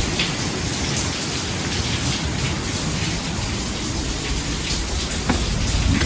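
Heavy, steady rain from the outer band of a hurricane, with gusty wind rumbling underneath.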